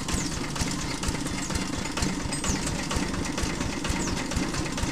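Small engine running steadily, driving a straw-chopping shredder machine, with a regular low pulsing throb.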